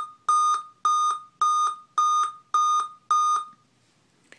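Dell Inspiron M5030 laptop giving its power-on error beep code: a series of loud, even, high beeps about half a second apart, seven in all, stopping about three and a half seconds in. The seven-beep code comes with a blank screen and means the laptop failed its power-on self-test, which Dell's beep-code list assigns to a processor error.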